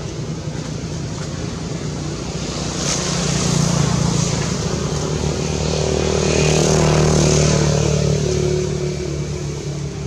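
A motor vehicle's engine running with a steady low hum, swelling louder about three seconds in and again around seven seconds in.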